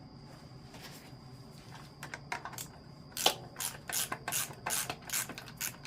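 A series of about ten sharp clicks and snaps, irregularly spaced and beginning about two seconds in, over a faint steady hum.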